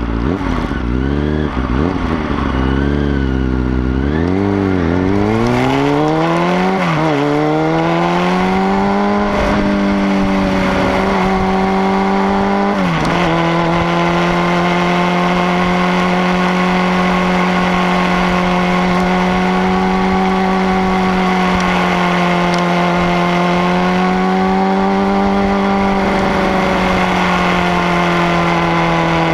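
Sport motorcycle engine heard close up, accelerating hard through several gears. The pitch climbs and drops back at each upshift over the first ten seconds, with one more shift about 13 seconds in, then holds a near-steady pitch as the bike cruises.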